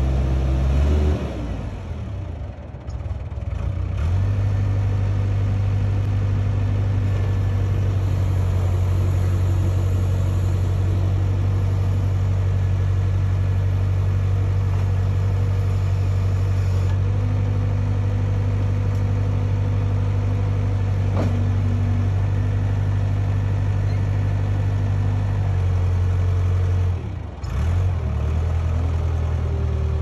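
Case 580K backhoe's four-cylinder diesel engine running. It throttles down a second or so in, revs back up about four seconds in and runs steadily, then drops briefly near the end before picking up again.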